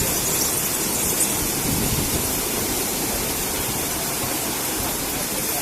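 Automatic car wash machine running, with a steady rushing hiss of water spraying.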